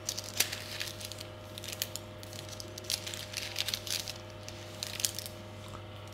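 Baking paper crinkling in short, scattered crackles as it is creased and folded against a stainless-steel cake ring.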